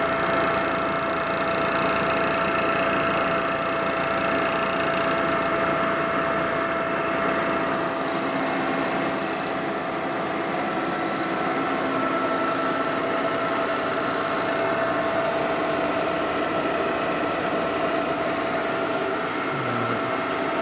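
Milling machine running steadily, its spinning cutter skimming a weld-repaired aluminum Harley panhead engine case: a constant machine hum with a high steady whine, cutting through the weld's porosity and delamination.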